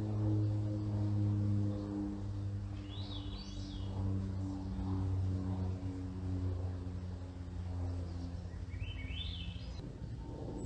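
Low, steady drone of an aircraft passing overhead, a hum with several pitched tones that slowly shift. A small bird gives a short rising call twice, about three seconds in and again near the end.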